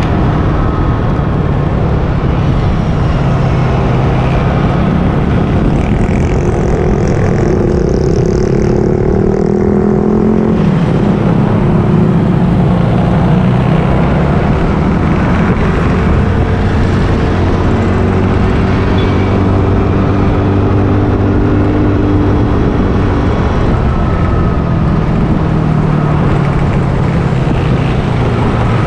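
Motorcycle engine running while riding through traffic, its pitch rising and falling as the speed changes, under a steady rushing noise.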